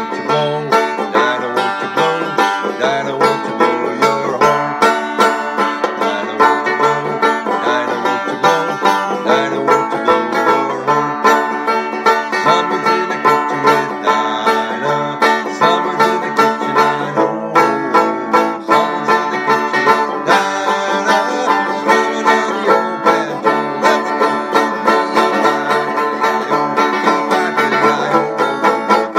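Banjo played solo, strummed and picked in a steady, even rhythm.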